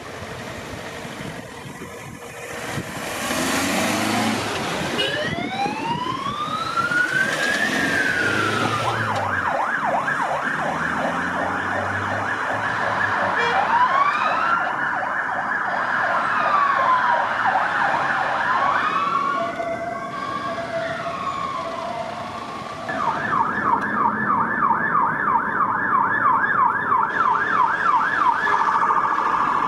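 UK police vehicle sirens. The first siren comes in about three seconds in as a slow rising and falling wail, then switches to a fast yelp while a second siren wails over it. Next comes a short spell of two alternating tones, and a fast yelp again near the end.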